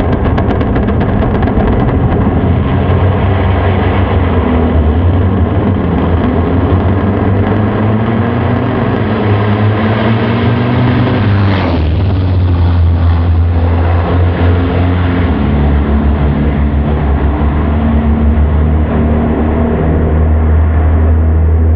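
Drag-race cars' engines running loud and steady down the strip, with a sudden change about halfway through after which the higher part of the sound falls away.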